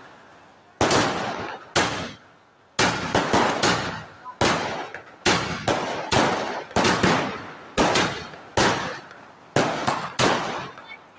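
Firecrackers going off one after another: about fifteen sharp bangs at uneven intervals, some in quick pairs and triplets, each with a short echoing tail.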